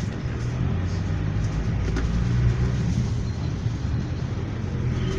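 Inside the cabin of a GAZelle Next minibus on the move: steady engine and road rumble.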